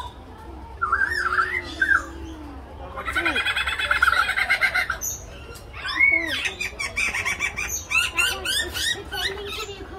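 Lyrebird singing a medley of mimicked calls: arched whistled notes first, then a fast run of repeated notes about three seconds in, and quick down-slurred notes mixed with clicks near the end.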